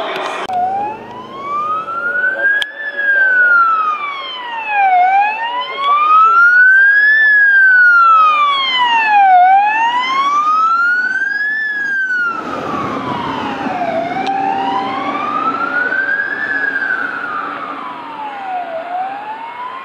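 Ambulance siren sounding a slow wail, rising and falling about every four and a half seconds, on a Mercedes-Benz Sprinter ambulance running with lights and siren. About twelve seconds in, the vehicle's engine and tyre noise grows louder as it passes close by.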